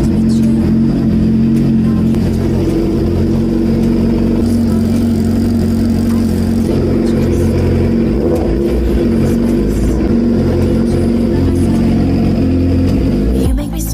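2006 Suzuki GSX-R's inline-four engine running at a steady speed through a KO Lightning slip-on exhaust, cutting off near the end.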